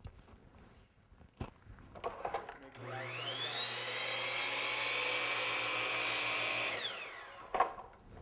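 Bosch miter saw cutting crown molding: the motor spins up with a rising whine, runs steadily for about four seconds through the cut, then winds down. A few light clicks of the molding being handled come before it.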